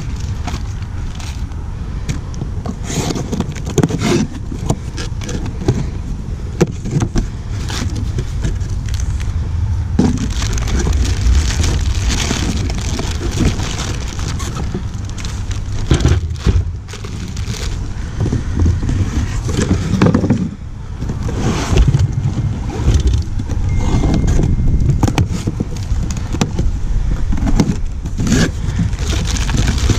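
Heavy breathing close to the microphone, over crinkling plastic wrap, paper and cardboard being handled as parts are unwrapped, with scattered clicks and rattles of small metal parts.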